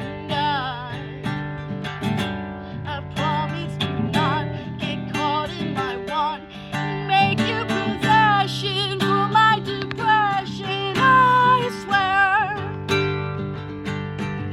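Home-recorded song: acoustic guitar strumming chords, with a melody line held in long notes with vibrato over it.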